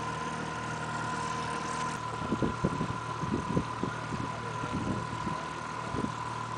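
Boat motor running steadily, a constant high whine over a low hum. From about two seconds in, irregular low thumps and buffeting come over it.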